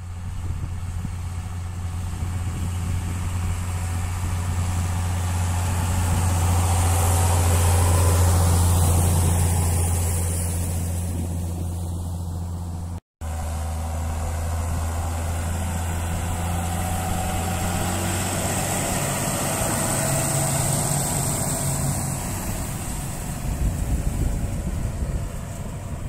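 John Deere 6810 tractor's six-cylinder diesel engine running steadily while working a field smoother, a low even drone. It grows louder toward about eight seconds in and eases off, cuts out briefly just past halfway, then runs on.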